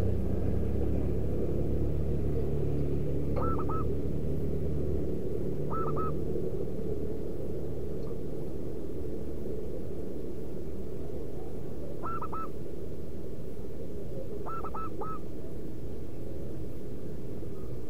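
Zebra dove giving short cooing calls, two or three quick notes at a time, a few seconds apart. They sound over a steady low rumble, and a low hum stops about five seconds in.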